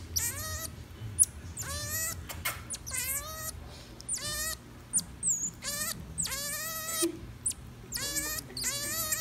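Common marmoset giving a string of short, high, wavering calls, about eight in nine seconds, each rising in pitch at the start, with sharp little clicks between them.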